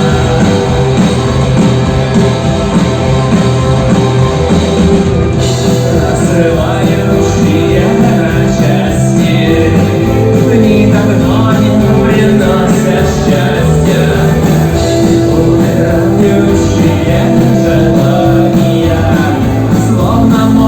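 Rock song with a band of guitars, bass and drums and a vocalist singing, loud and continuous.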